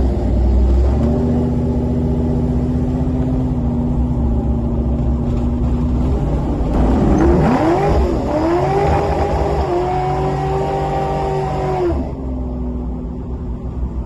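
1969 Dodge Charger's engine heard from inside the cabin, pulling at steady revs, then dipping and flaring sharply about seven seconds in. It climbs at higher revs and drops back suddenly near the end, as if the throttle was lifted.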